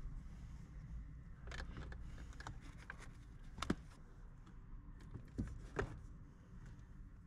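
A scattering of short, light clicks and knocks, as of small objects being handled, the loudest about three and a half seconds in, over a steady low rumble.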